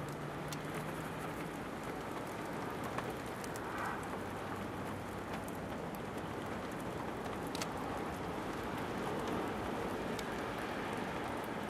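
Steady rain falling, with individual drops ticking now and then.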